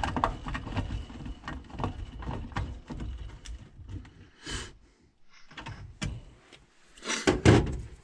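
Irregular clicks, rattles and knocks of hands working the wiring and sheet metal inside an air handler cabinet, with a short scrape midway and a louder knock near the end.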